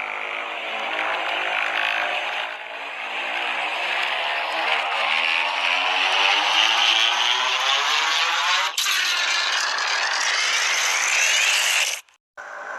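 Custom-made sound effect of Godzilla's spiral ray charging: a loud, noisy sweep rising in pitch for about nine seconds, a brief break, then a harsher hiss that cuts off abruptly.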